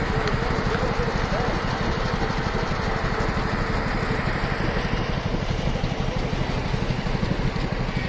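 Steam traction engine running a belt-driven circular saw bench, a steady machine sound with a rapid, even low beat.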